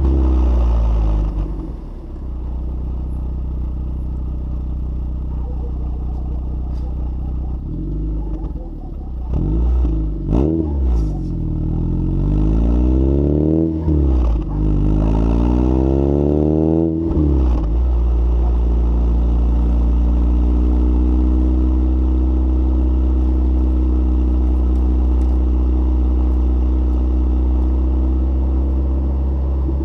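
Lotus Elise S1 111S's Rover K-series 1.8 VVC four-cylinder engine through a Bell & Colvill exhaust with decat: revs falling back to idle at the start, idling, then a series of quick throttle blips in the middle, each rising and dropping, before settling back to a steady idle.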